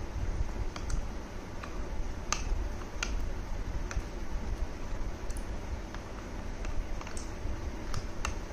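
A metal spoon stirring oats and milk in a plastic jar, clicking against the jar's sides about ten times at an uneven pace, over a low steady rumble.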